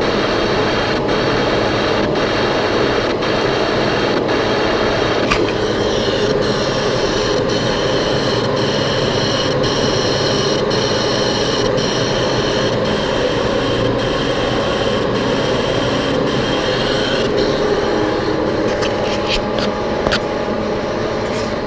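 Boring machine running, its cutter taking a pass inside the bore of a vacuum compressor housing: steady cutting noise with a faint even tick about twice a second. A steady high tone joins about five seconds in and fades near the end, followed by a few sharp clicks.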